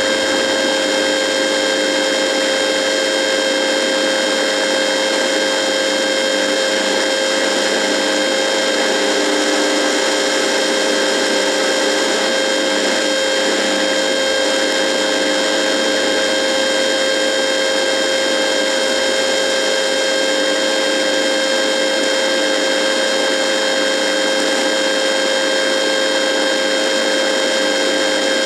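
A radio buzzing: a steady electrical buzz of several fixed tones over a hiss of static.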